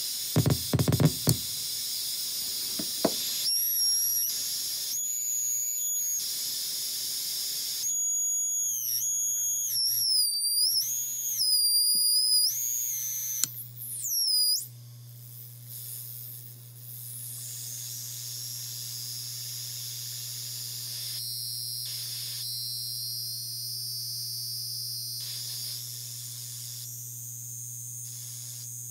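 Handmade circuit-bent noise box played by passing a hand over its light sensor: high-pitched whistling tones swoop up and down over static hiss, cutting in and out. From about halfway it settles into a steadier static hiss over a low hum.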